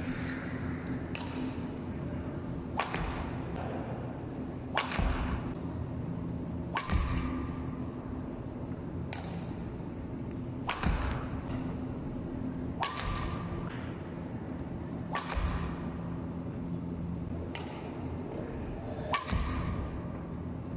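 Badminton racket smashing shuttlecocks, a sharp crack about every two seconds, about ten in all, each ringing briefly in a reverberant gym hall. A few strikes come with a low thud of feet landing on the wooden floor, over a steady low hum.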